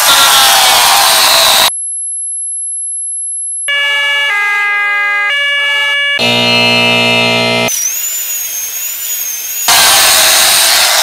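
A run of separate electronic sound effects: a hissing noise with gliding siren-like tones, then a steady very high-pitched tone for about two seconds, a string of stepped electronic beeps, a harsh low buzzer, a high warbling whistle, and the hissing noise again near the end.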